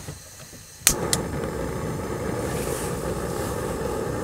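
Jetboil backpacking stove being lit: a sharp click from its igniter about a second in and a second click just after, then the gas burner catches and runs with a steady hiss.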